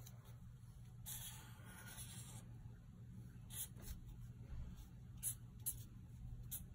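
Felt-tip marker drawing on paper, faint: one longer stroke about a second in, then a few short, quick strokes.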